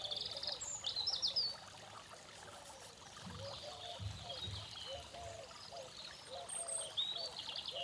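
Garden fountain trickling steadily while birds sing, with a high trilling song near the start and again near the end and short chirps throughout. A few soft low thumps come in the middle.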